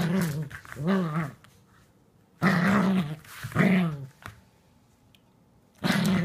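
Small dog growling in play while tugging and wrestling over a toy, in a string of short pitched growls with pauses between them.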